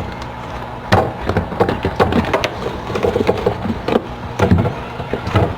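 Several knocks and clunks of pickle jars and containers being handled and set down on a fridge shelf, about one a second, over a low steady hum.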